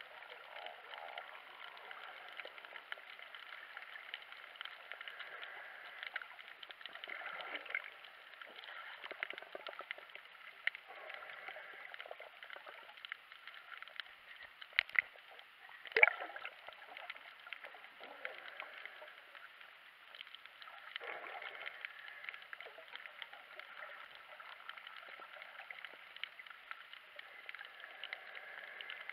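Underwater sound picked up by a camera in a waterproof housing: a muffled, crackling wash of water and bubbles, with a few sharp knocks about halfway through.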